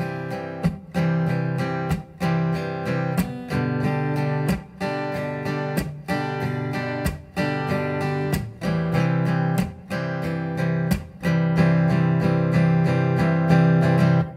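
Martin 00-17 acoustic guitar strummed in a steady four-beat pattern through the verse chords C over G and G, with short heel-of-the-hand accents on the two and four.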